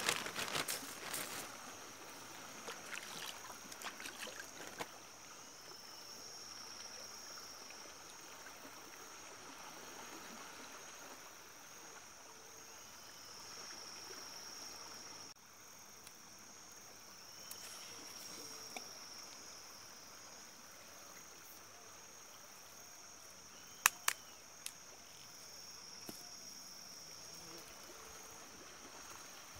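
A steady high insect drone that swells and fades every few seconds, over quiet riverside ambience. Scattered clicks and knocks of fishing tackle being handled, the sharpest a pair of clicks about 24 seconds in.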